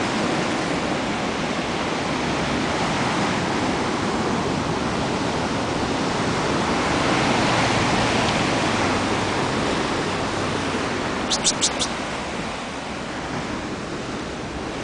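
Sea surf breaking on rocks, a steady rushing noise that swells a little about halfway through. About eleven seconds in, four quick sharp clicks.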